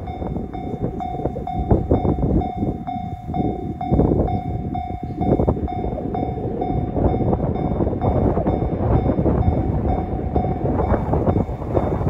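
Japanese level-crossing warning bell ringing in a steady electronic ding-ding pattern, about two strikes a second, over a heavy low rumble; the bell grows fainter late on. It signals a train approaching the crossing.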